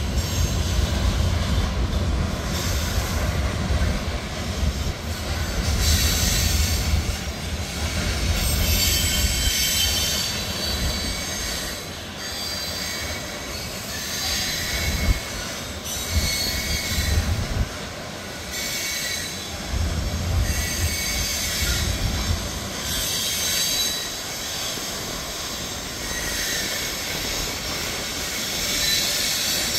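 Freight train of hopper cars rolling past with a continuous low rumble of wheels on rail. High-pitched steel wheel squeals come and go throughout, and the rumble eases for a while in the middle.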